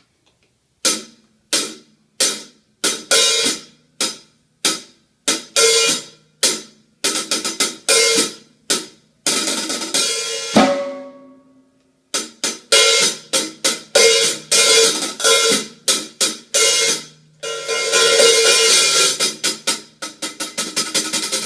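Zildjian ZHT 14-inch Master Sound hi-hats played with a stick, crisp separate strokes that each die away quickly, recorded by a phone microphone without drum mics. About ten seconds in there is one harder stroke with a low thud. Near the end the hats are played open in a continuous wash of rapid strokes.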